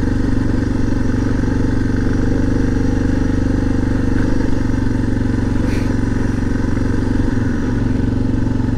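Suzuki DR650's single-cylinder four-stroke engine running steadily under way, with a brief dip in revs about seven seconds in.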